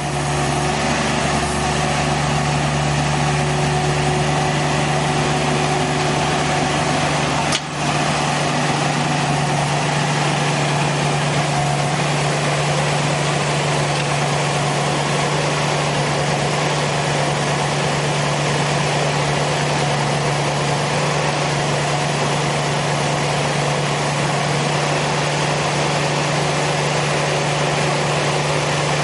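The 32-horsepower diesel engine of a Ditch Witch XT855 tracked backhoe running steadily at one speed, with a brief break about seven seconds in.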